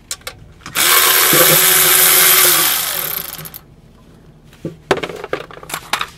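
Cordless power tool spinning a 10 mm socket for about three seconds to back out a transmission fluid pan bolt, its motor winding down at the end. A few short metallic clicks and knocks follow near the end.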